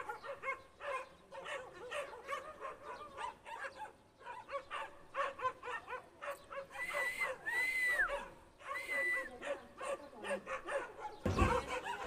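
Dogs barking repeatedly in quick short calls, with a few longer drawn-out yelps a little past the middle.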